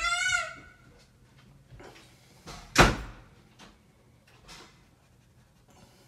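A child's high-pitched cry trails off in the first second. About three seconds in comes a single loud bang, a door slamming, followed by a couple of faint knocks.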